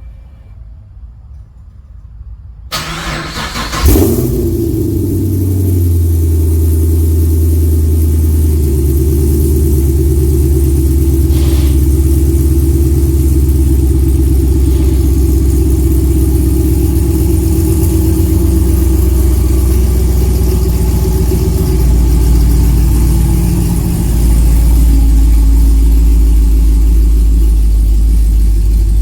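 Chevrolet Camaro SS's V8 engine cranked by the starter and catching about four seconds in with a loud flare, then running steadily at a low idle.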